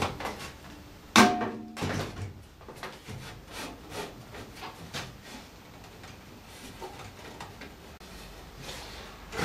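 Wooden planks of a hand-made longboard deck knocking together as the grooved pieces are fitted and slid into place by hand. A sharp wooden clack about a second in rings briefly, followed by a thump and a run of lighter knocks and rubs that fade in the second half.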